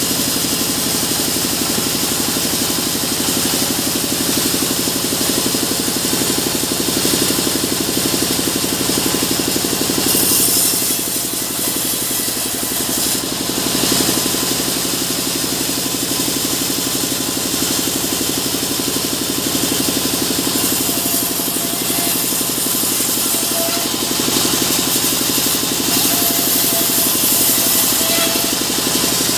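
Band sawmill running steadily, its blade sawing lengthwise through a mahogany log: a constant motor drone under the high hiss of the cut.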